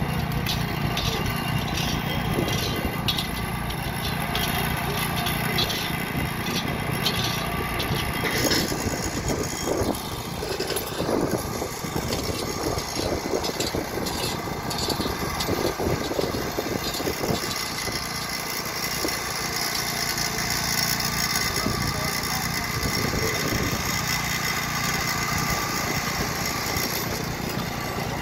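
Small petrol engine of a portable rail-track maintenance machine running steadily, with short metallic clicks and knocks over the first eight seconds or so.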